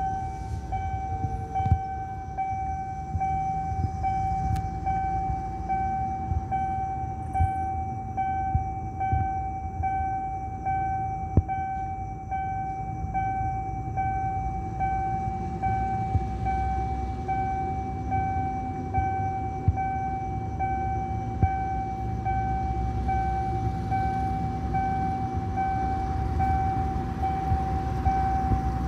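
Railway level-crossing warning alarm sounding a steady electronic tone that pulses about twice a second, over low road and traffic rumble that swells near the end as a car passes.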